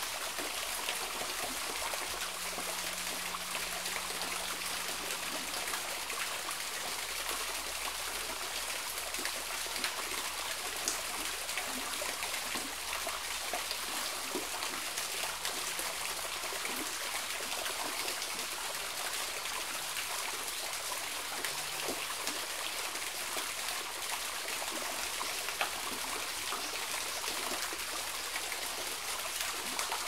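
Small waterfall trickling down over rocks through a series of little plunge pools: a steady water sound dotted with small splashes and drips.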